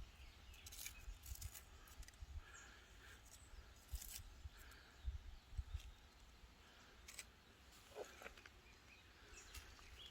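Near silence in a forest: faint outdoor ambience with scattered light clicks and low bumps, and a few faint bird chirps.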